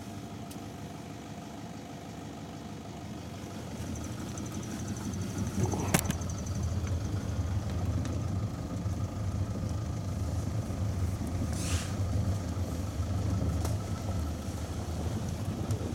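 Safari vehicle's engine running with a steady low hum that grows louder after about four seconds. A sharp click comes about six seconds in, and a brief hiss near the end.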